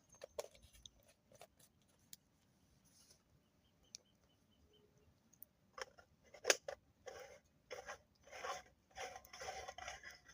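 Close handling noises: scattered light clicks, a sharp knock about six and a half seconds in, then a run of short scraping strokes.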